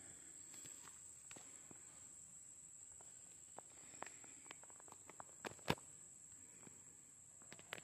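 Quiet outdoor ambience: a faint, steady, high-pitched insect drone, with scattered light clicks and rustles. The sharpest clicks come a little past five seconds in.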